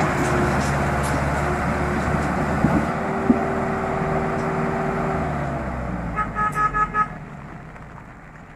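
Sonalika tractor's diesel engine running under load as it hauls a loaded trailer up a muddy, rocky slope, with a couple of clanks, then fading about two-thirds of the way through. A vehicle horn then gives a quick string of about six short toots.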